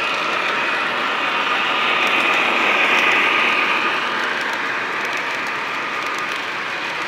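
Lionel O-gauge model freight train running past close by: the steady rattle and rush of its wheels on the track, with a thin steady hum, swelling to its loudest about three seconds in and easing off as the cars go by.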